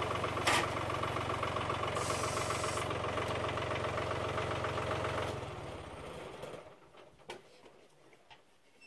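A John Deere tractor's engine runs steadily while the tractor pulls a log on a chain from its loader bucket. About five and a half seconds in, the engine winds down and stops, leaving only a few faint clicks.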